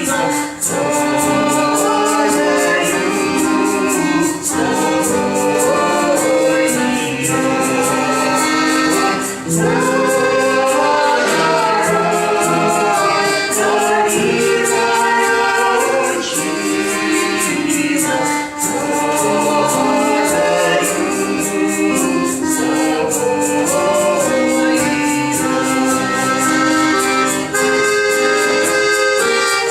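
A vocal group singing a Russian folk song in chorus, with instrumental accompaniment over a steady beat.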